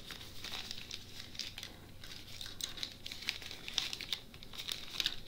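Thin clear plastic bag crinkling and rustling in quick, irregular crackles as it is handled and small diamond-painting tools are pulled out of it.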